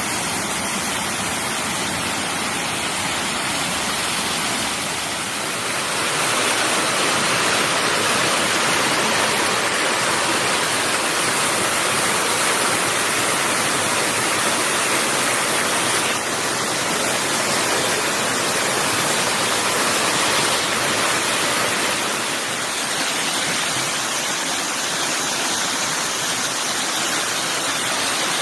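Steady rush of a rocky woodland stream tumbling over small cascades and falls. The rush grows louder about six seconds in.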